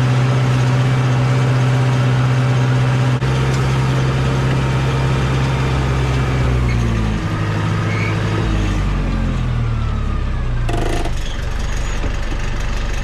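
A vehicle's engine running at steady speed, then falling in pitch over several seconds as it slows down. A short noisy burst comes near the end.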